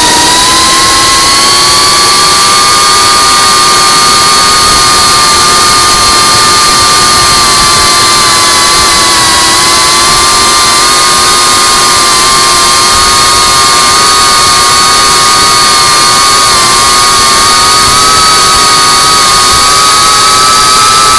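FPV quadcopter's electric motors and propellers whining steadily as heard from on board, the pitch rising a little just after the start, dipping briefly about ten seconds in and creeping up again, over a constant rushing hiss.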